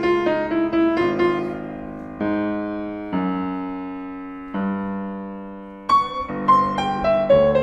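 Yamaha CFX concert grand piano playing: quick running notes, then three held chords left to ring and fade, then quick notes again near the end. Recorded through a DPA 4006 omnidirectional microphone.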